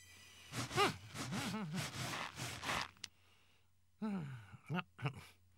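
Cartoon penguin voice making wordless gasps and grunts over a raspy scraping noise during the first half. After a short silence comes a brief falling vocal sound.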